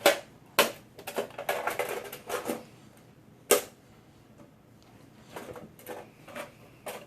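A run of sharp knocks and clicks with rustling, as small objects are handled and packed into a bag. The loudest knocks come right at the start and about three and a half seconds in.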